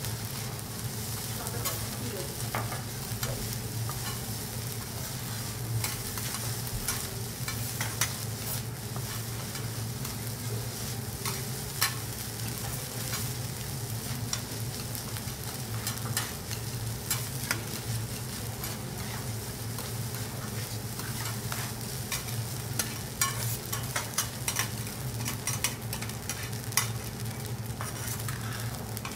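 Food sizzling on a teppanyaki griddle, a steady hiss broken by frequent sharp clicks and taps, over a steady low hum.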